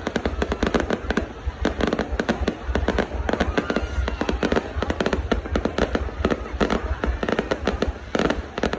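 New Year fireworks going off in rapid succession: a dense, continuous run of sharp cracks and bangs, several a second, over a steady low rumble.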